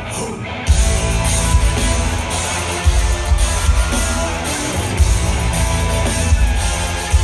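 Pop song played loud through concert speakers, heard from within the audience, with a heavy pulsing bass that drops out briefly just under a second in.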